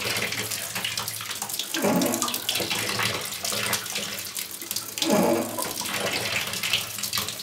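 Water running out of a mixer tap as a Rainford electric storage water heater drains, with air being sucked into the tank to replace it. A steady rush of water, with a gurgle about two seconds in and again about five seconds in.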